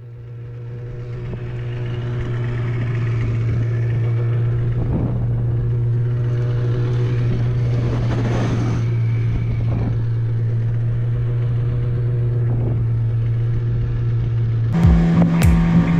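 Small boat's outboard motor running steadily, fading in at the start. About a second before the end the engine note steps up higher and louder, with a run of sharp knocks.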